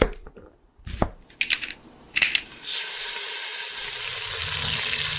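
Animated-intro sound effects: a low thump at the start and a sharp knock about a second in, a few quick whooshes, then a steady hiss with a low rumble underneath.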